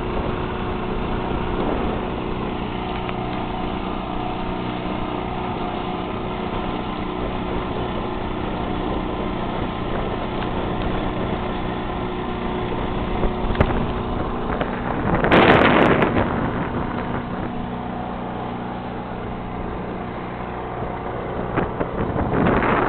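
The schooner's yawl push-boat engine running steadily at cruising speed, a constant hum, while it pushes the engineless schooner. Wind buffets the microphone in two loud rushes, about two-thirds of the way through and again near the end.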